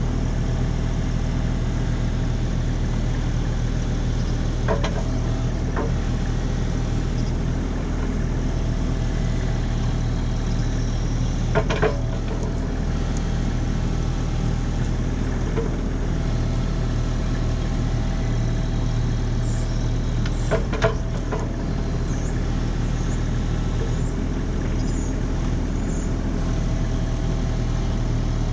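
Diesel engine of a compact earthmoving machine running steadily, with a few sharp knocks every several seconds.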